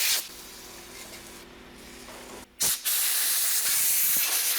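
Pressurised spray hissing as a freshly wire-brushed wheel hub is blown off and degreased. A loud spray cuts off just after the start, a quieter stretch follows, and then a second loud spray starts a little under three seconds in.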